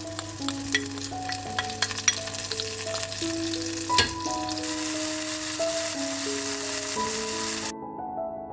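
Food sizzling and crackling in a hot frying pan, with one sharp knock of a utensil about four seconds in and the sizzle growing louder after it. The sizzle cuts off suddenly near the end, leaving soft piano background music.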